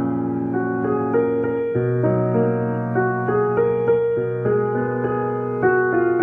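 Background piano music: a gentle melody stepping from note to note over held low chords.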